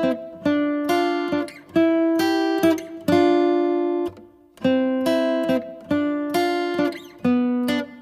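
Acoustic guitar music: chords strummed one after another, each ringing out and fading before the next.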